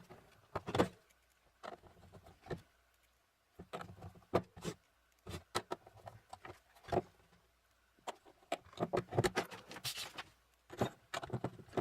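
Scattered small metallic clicks, taps and rattles, in irregular clusters with short quiet gaps: screws being handled and driven into the sheet-metal case of a server power supply.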